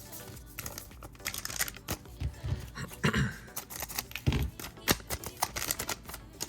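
Foil card-pack wrapper crinkling and trading cards being handled and slid, with a few soft thumps, over quiet background music.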